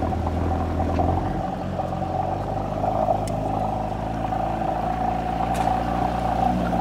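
An engine running steadily with a constant hum; its low tone shifts slightly about two and a half seconds in.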